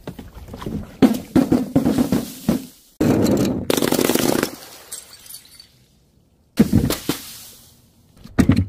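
Powder-filled balloons knocking and bumping as they roll down a wooden ramp, then bursting on paving with a sudden loud crash about three seconds in, a rushing spray lasting about a second and a half. A second sudden burst comes over halfway through and fades away.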